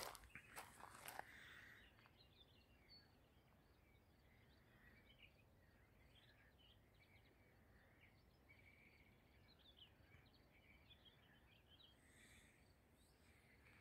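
Footsteps crunching on a gravel path for about the first two seconds. After that, near silence with many faint, short bird chirps.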